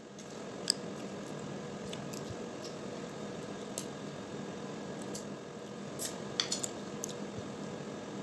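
Cooked crab shells being cracked and picked apart by hand: scattered sharp small clicks and snaps, with a quick cluster of them about six and a half seconds in, over a steady low hum.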